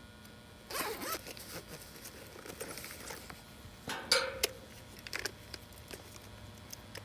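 A zipper pulled in several short rasping strokes, the loudest about four seconds in.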